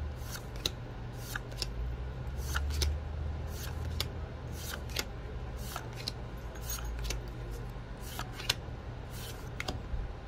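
A stack of Magic: The Gathering cards being flipped through by hand, one card slid from front to back at a time, giving a short sharp swish or snap about twice a second over a steady low hum.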